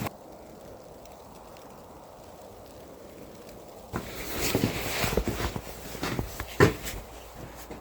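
Faint steady hiss, then from about four seconds in irregular rustling and knocking, like footsteps and handling, with one sharp knock near the end.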